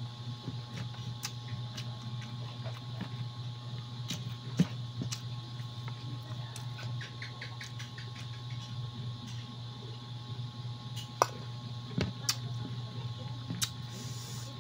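Eating sounds from someone having chicken broth and rice by hand: chewing, fingers working rice in a plastic container, and sipping broth from a bowl, with several sharp clicks and knocks of dishes. A steady low hum runs underneath.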